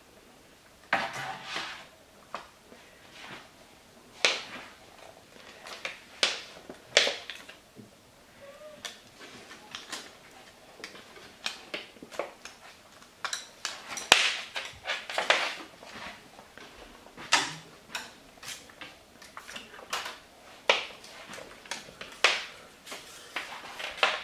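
Siberian kittens playing on a wooden floor: irregular scrabbles, skids and knocks of paws and claws on the boards and against a plastic toy, some sharp and some soft, in quick scattered flurries.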